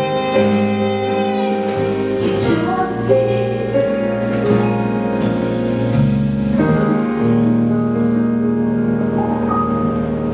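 Live band music: sustained keyboard chords that change every second or two, with evenly spaced percussion hits.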